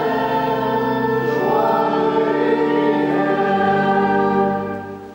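Congregation singing a hymn together, several voices in long held notes, fading out near the end.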